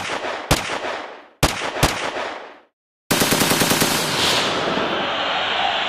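Gunshot sound effects: four single shots in two pairs, then after a short silence a rapid machine-gun burst that runs into a steady rushing noise.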